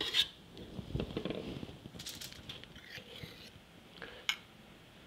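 Soft clinks and scrapes of two metal spoons scooping meringue and dropping it onto a foil-lined baking sheet: a few scattered small clicks, one sharper click a little after four seconds in.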